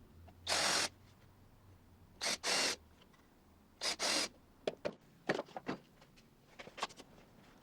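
Countersink bit cutting into plywood pilot holes in short rasping passes: one, then two pairs, followed by a few light clicks of handling.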